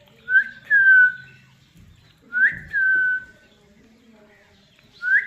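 Whistling, three times, about two seconds apart: each a quick upward note that slides down into a level tone.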